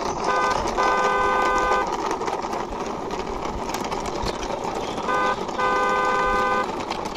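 A car horn beeps twice, each time a short beep followed by a held toot of about a second and a half. Under it runs a steady whir from the plastic toy car being pushed by hand along a stone ledge.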